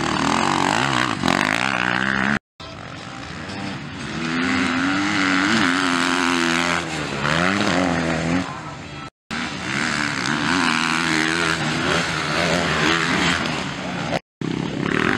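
Motocross dirt bike engines revving up and down as riders race through corners and over jumps. The sound cuts out abruptly for an instant three times where short clips are spliced together.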